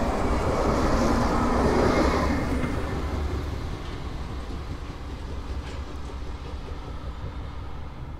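Low-floor electric tram passing close by on grass track: a rolling rumble that is loudest about two seconds in, then fades as it moves away.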